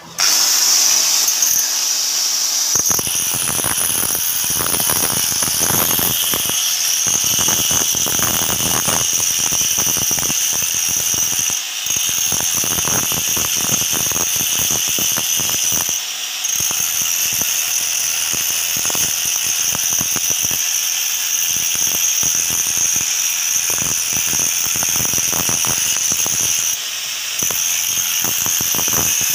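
Electric angle grinder with a small cup-shaped wheel, switched on just after the start, dressing the face of a flour-mill millstone: a steady high whine, with a scraping grinding noise from a few seconds in as the wheel works the stone, briefly easing a few times. The stone is being roughened so that it grinds maize flour coarser rather than too smooth.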